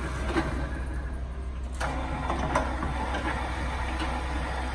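LeBlond Regal 18-inch engine lathe running with its spindle at 137 RPM, a steady low mechanical hum. A few light clicks and knocks come through, the sharpest just before the middle.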